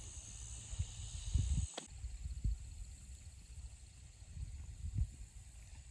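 Outdoor ambience: wind rumbling and buffeting the microphone in irregular gusts under a steady high hiss. The sound changes abruptly about two seconds in, after which the hiss is fainter.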